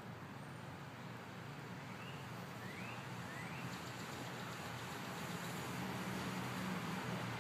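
Steady low hum of a distant engine, slowly growing louder, over an outdoor noise haze. Three faint short rising chirps come about two to three and a half seconds in.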